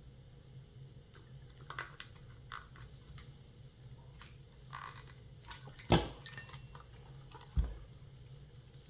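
Zip ties being fastened and pulled tight around an electric scooter tire: scattered small plastic clicks, a short ratcheting rasp about five seconds in, a sharp knock about six seconds in and a duller thump near the end.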